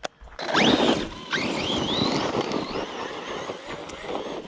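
Redcat Racing Kaiju EXT RC monster truck's brushless electric motor whining up in pitch twice as it accelerates hard, with tyres tearing over dirt, the sound slowly fading as it drives off.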